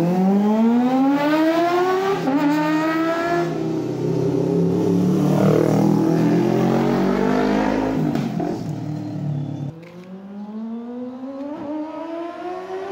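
Kawasaki Ninja ZX-25R's 250 cc inline-four, breathing through an aftermarket Villain exhaust, revving hard as it accelerates, the pitch climbing in sweeps with brief dips at the gear changes. The sound drops away sharply near ten seconds, then climbs again toward the end.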